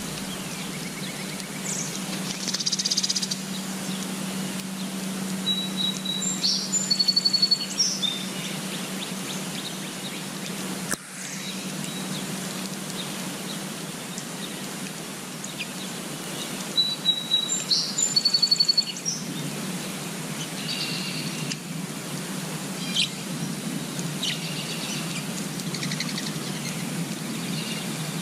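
Songbirds chirping and singing over a steady low background rumble. The same short song of high notes ending in a quick trill comes twice, about ten seconds apart, with scattered single chirps between.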